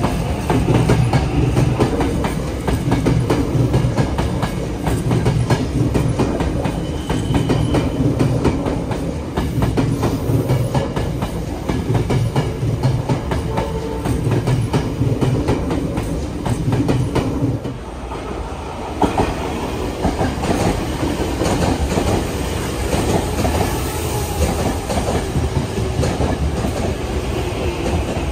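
Tobu Railway electric train running through the station: a steady loud rumble with wheels clattering rhythmically over the rail joints. The sound dips briefly about two-thirds through, then carries on.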